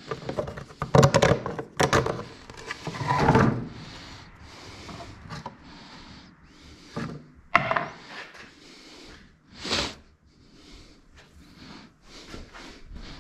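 A string of irregular knocks, thunks and short scraping rubs, like parts being handled and set down.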